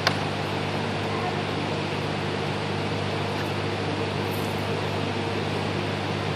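Steady low hum with a constant hiss over it, and one sharp click right at the start.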